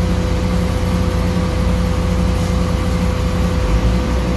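Steady drone of an engine running, a low rumble with a constant higher hum over it; the rumble grows heavier near the end.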